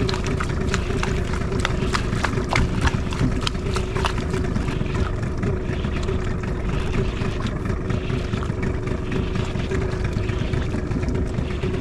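Fishing boat's engine idling with a steady hum, under a constant rush of wind and water. A quick run of sharp clicks sounds over the first few seconds, then fades out.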